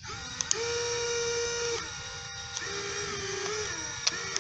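Small quadcopter motors and propellers on a homemade RC boat, whining in throttle bursts. They spin up about half a second in and drop off near two seconds, then run again at a lower pitch and stop near the end, with a few light clicks.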